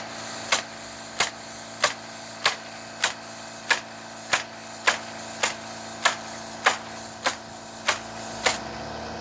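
Nails being driven on a roof: a steady series of sharp strikes, about fourteen, one every 0.6 seconds or so, over a low steady hum.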